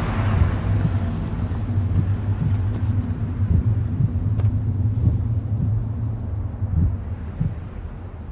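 A steady low rumbling drone under a hiss, with a few faint knocks, beginning to fade near the end.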